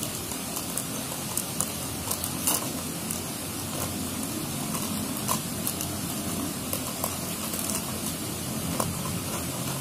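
Steady rushing of a waterfall's water, an even hiss, with a few light clicks and rustles of paper plates and plastic being handled.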